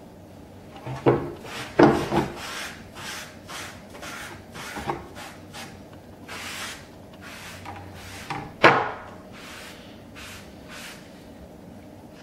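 Dish sponge rubbing wood stain along a wooden board in a series of short swishing strokes, with a few louder knocks, the loudest about two seconds in and near nine seconds; the strokes thin out toward the end.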